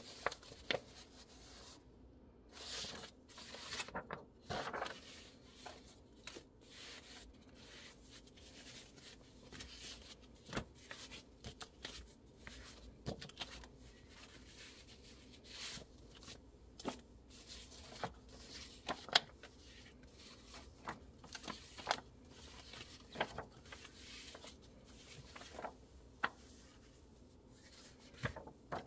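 Paper brochures rustling and sliding as they are leafed through by hand, with scattered short flicks and soft taps of paper on paper.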